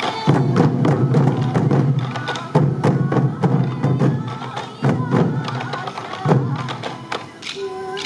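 Traditional sansa odori music: many slung taiko drums beaten together in a driving rhythm, with transverse bamboo flutes (fue) playing the melody. The drumming comes in heavy swells that start about every two seconds.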